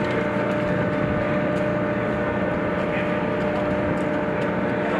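Steady machinery drone of a dock landing ship's well deck, with several held tones over a constant hum.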